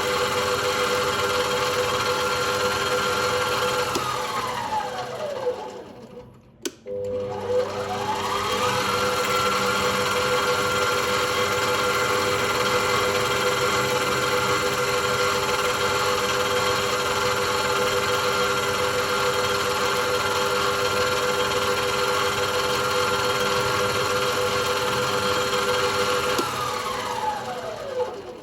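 Small electric motor running at a steady speed, winding down to a stop about five seconds in, then a click, then spinning back up and running steadily before winding down again near the end.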